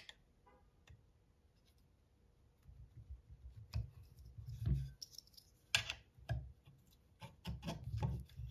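Light clicks, taps and scrapes of small aluminum router-guide parts being handled, as the circle-guide pivot plate and pin are worked into a stiff fit on the guide. Nearly silent for the first couple of seconds, then scattered clicks.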